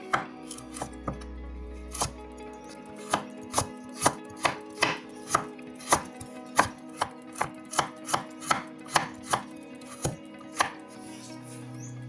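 Chef's knife slicing a carrot into thin strips on a wooden cutting board: the blade knocks sharply on the wood, a few scattered strokes and then a steady run of about two to three a second that stops near the end.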